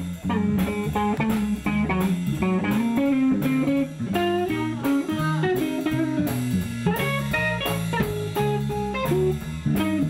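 Blues band playing live: an electric guitar picks single-note lines over bass guitar and drums, which keep a steady beat.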